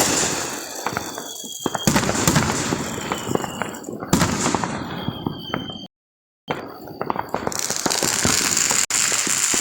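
Aerial fireworks going off, several sharp bangs about two seconds apart, each followed by crackling. The sound drops out completely for about half a second in the middle.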